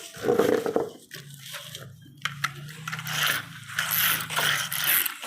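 Plastic toy vehicle's gear mechanism clicking and ratcheting, with a steady low hum under it from about a second in until near the end.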